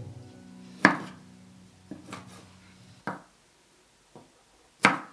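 Chef's knife dicing a tomato on a wooden cutting board: about half a dozen sharp knocks of the blade on the board at uneven spacing, the loudest about a second in and another near the end.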